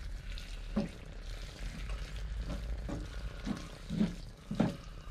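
Wooden spoon stirring and scraping ground lamb mince and vegetables in a frying pan, the mixture sizzling in its new gravy liquid. The spoon scrapes come about every half second.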